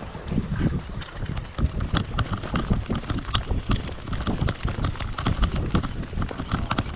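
Wind buffeting the microphone on an inflatable boat in choppy sea, a low rumble broken by irregular slaps and splashes of waves against the hull.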